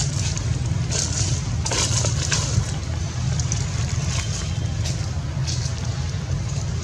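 A steady low rumble, with brief crackling rustles now and then, the strongest about two seconds in.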